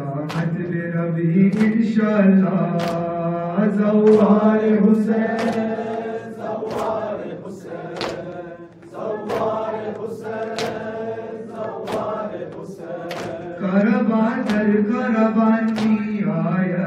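Male voice reciting a noha, a chanted Shia lament, into a microphone in long held, wavering sung lines with a short break about halfway. Sharp slaps keep a steady beat under it, roughly one every three-quarters of a second.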